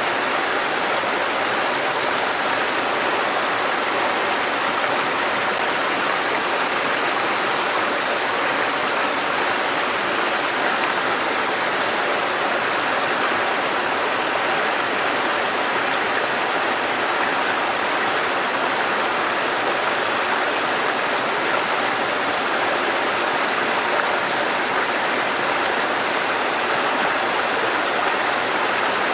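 Shallow river babbling over stones, a steady, unbroken rush of flowing water.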